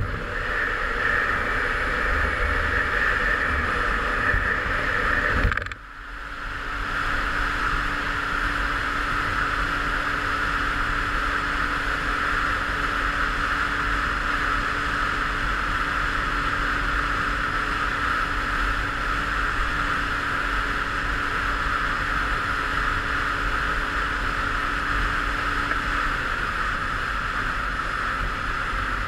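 Derbi Senda Xtreme 50's small two-stroke single-cylinder engine running at a steady high buzz while riding, with wind noise on the microphone. About six seconds in the sound dips sharply for a moment, then picks back up and holds steady.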